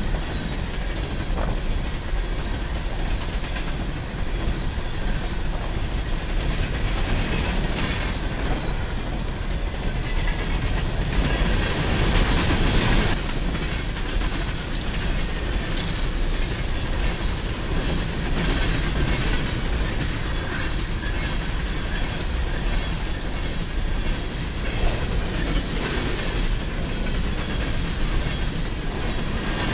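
Freight train of coal cars rolling past at speed: a steady rumble and clatter of steel wheels on rail, with a faint high wheel squeal at times.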